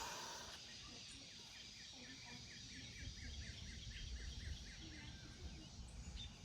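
A bird calling in a quick series of repeated chirps, about four a second, lasting a few seconds, over a faint low rumble.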